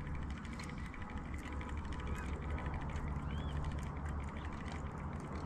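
Small size-1000 spinning reel on an ultralight rod being cranked, a fast run of light mechanical clicks from its gearing, over a steady low rumble.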